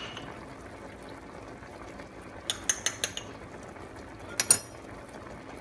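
Light clinks of a kitchen utensil against cookware: a quick cluster of clinks about two and a half seconds in and two more near the end, over a faint steady hiss.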